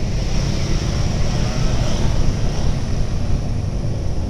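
Wind rushing over the microphone and road noise while riding a Yamaha NMAX scooter, its engine running under the steady rumble.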